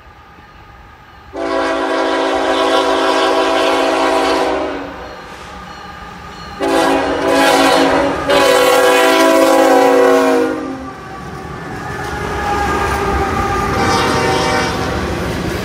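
Freight locomotive horn sounding a chord of several notes: one long blast, then a second sounding with a short break in it. After that the CSX diesel locomotives pass close by with a rising rumble, and the open-top hopper cars follow with wheels clattering over the rail joints.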